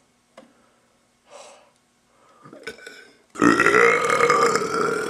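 A man's long, loud burp with a steady, held pitch, starting about three and a half seconds in after a few quiet seconds with only a faint click and short breaths.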